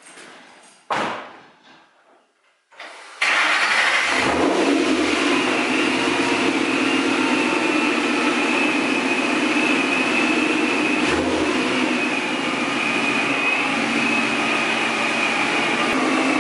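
A single sharp thump about a second in, then a brief crank and the Mustang GT's supercharged 5.0 Coyote V8 catches about three seconds in and settles into a loud, steady idle.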